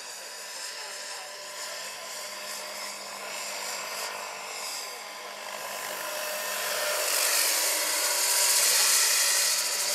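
Electric drive of a large-scale Vario SA-341/342 Gazelle model helicopter in flight: a steady whine, getting louder as it passes close and loudest about eight to nine seconds in.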